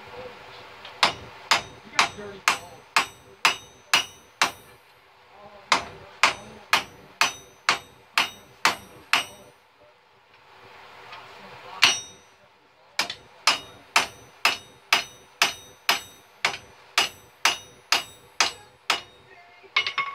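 Hand forging: a hand hammer striking a workpiece held in tongs on a steel block anvil, about two ringing blows a second. Three runs of blows, the longest near the end, are separated by short pauses and one lone heavy blow.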